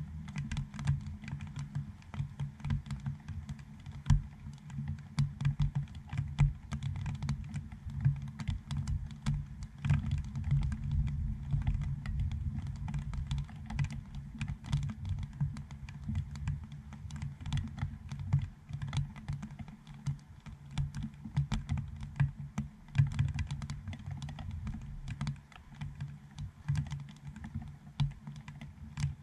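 Raindrops hitting a GoPro Dome housing over the camera, heard right at the microphone: a dense, irregular patter of small taps over soft low thuds.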